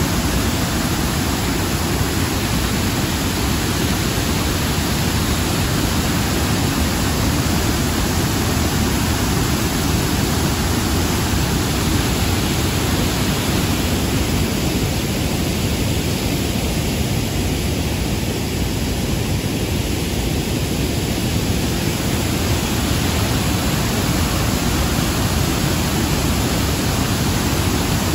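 Shifen Waterfall, a wide, heavy cascade, rushing steadily: a constant loud noise of falling water, deepest in the low rumble.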